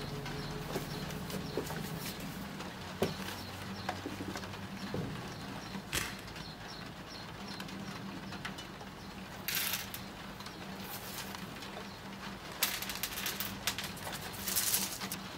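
Coffee beans dropped by hand onto a table, clicking and rattling in short scattered bursts in the second half. Under them run a low steady drone and scattered small clicks.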